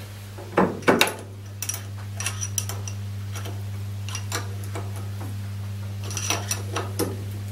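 Metal clunks and clinks as a back plate is seated onto a lathe's spindle flange and its bolts are worked with a hex key, a bar in the plate holding the spindle still. Two louder clunks come about half a second and a second in, then lighter scattered clinks, over a steady low hum.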